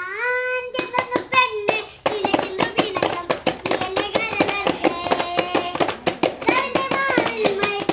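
Children singing a song together while beating with their hands on upturned plastic containers as improvised drums, with a toy keyboard. The drumming starts about a second in and settles into a fast, steady beat from about two seconds.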